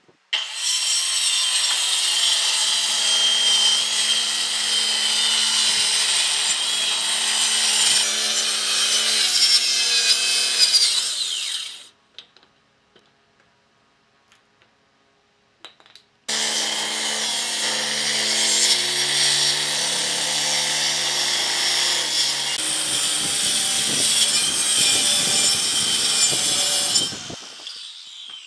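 Handheld circular saw cutting lengthwise through a thick solid-wood slab: two long, steady cuts with a few seconds of near silence between them. Near the end the blade winds down with a falling whine.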